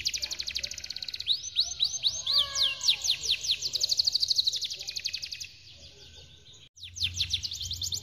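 Domestic canary singing a long rolling song: fast trills of rapidly repeated falling notes, about a dozen a second, with a few lower slurred notes about two seconds in. The song drops away about five and a half seconds in and resumes near the end with another fast trill.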